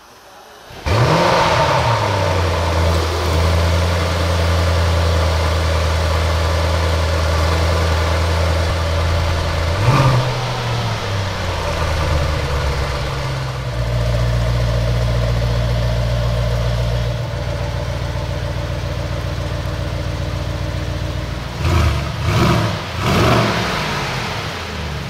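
Mercedes-AMG GLE 63 S's 4.0-litre twin-turbo V8 starting in Sport Plus mode: a sudden loud start-up flare about a second in, then a high, steady cold idle. There is one short rev about ten seconds in, the idle drops lower later, and three quick revs come near the end. The engine is still cold and not yet run in, so there are no pops or crackles.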